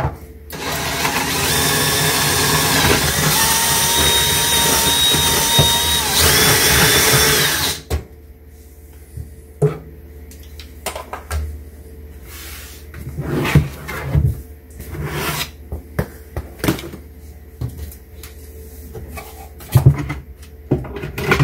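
Cordless drill boring a starter hole through a cabinet shelf for a jigsaw blade: a steady whir that stops abruptly about eight seconds in. Scattered knocks and clicks follow.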